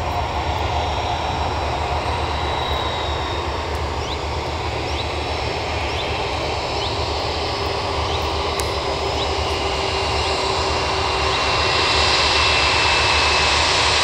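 Airbus A321 airliner's jet engines running: a steady rush with a high whine, growing louder near the end.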